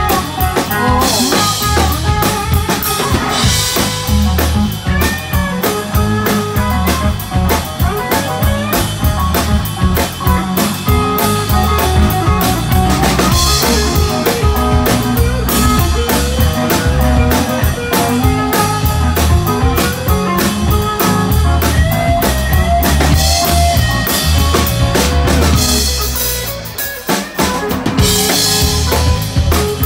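Live blues-rock band playing an instrumental passage: electric guitar lead lines over electric bass and a drum kit keeping a steady beat. Near the end the drums stop for about a second, then the full band comes back in.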